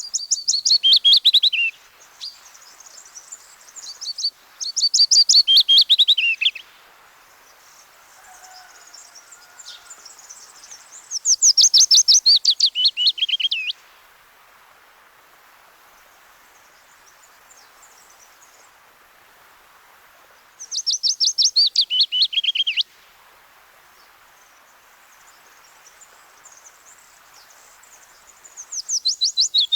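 Willow warbler singing: five phrases, each a soft, sweet run of notes about two seconds long that drops steadily in pitch, repeated every several seconds, with fainter birds behind.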